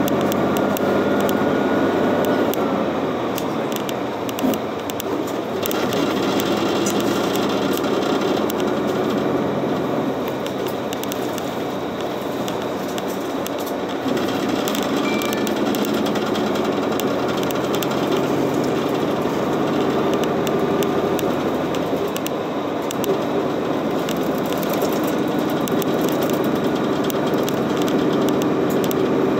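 City bus driving along the road, heard from inside the cabin: a steady engine drone mixed with tyre and road noise, growing louder again about halfway through.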